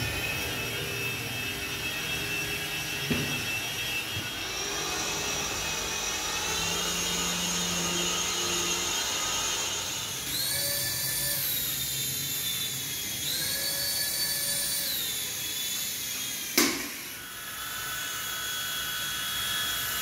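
Small electric motors and rotors of two toy RC helicopters whining steadily, the pitch stepping up and falling back several times as the throttle changes. About two-thirds of the way through comes one sharp knock.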